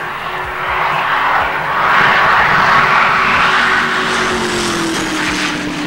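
Callaway Sledgehammer Corvette's twin-turbocharged 350 small-block V8 running flat out as the car passes at high speed, loudest about two to three seconds in, its pitch falling after that as it draws away.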